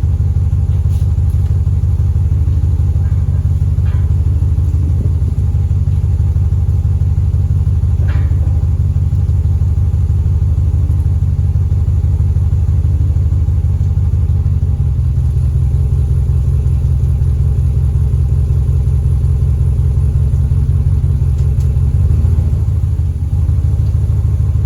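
A 2021 Ram 1500 pickup's engine idling steadily, with a low rumble whose tone shifts slightly about fifteen seconds in.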